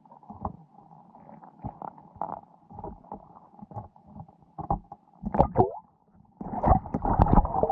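Muffled water movement and scattered knocks heard through an underwater camera, getting louder and denser from about six and a half seconds in.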